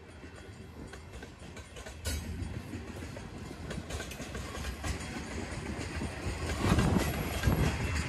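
Diesel-hauled freight train approaching, its locomotive engines and wheel clatter on the rails growing steadily louder, with a jump in level about two seconds in.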